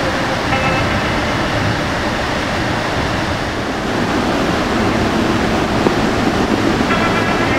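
Floodwater rushing steadily through the open spillway gates of Post Falls Dam on the Spokane River, running at flood flow of about 43,000 cfs.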